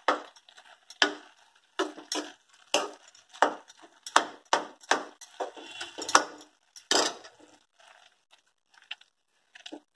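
Metal spoon scraping and knocking against a metal kadhai while stirring grated papaya with mawa and ghee, in a regular run of about two strokes a second that thins out and grows fainter after about seven seconds.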